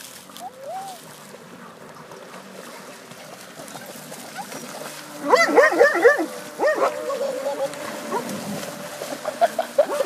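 A dog yelping and whining in clusters of short high cries, the loudest about five seconds in and more near the end, while swimming after an RC boat. A steady thin whine from the RC boat's small motor runs underneath.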